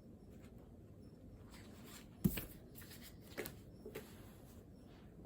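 Quiet room tone with a few light knocks and clicks on a desk, the loudest a little over two seconds in, then two softer ones.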